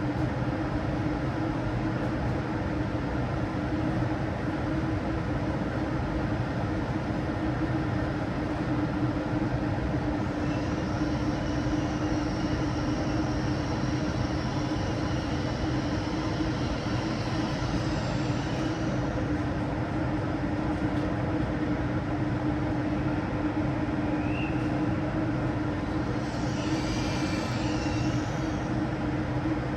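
SNCF TGV inOui high-speed train running at a steady speed: a constant rumble with a steady hum, and a faint high whine joining for several seconds in the middle.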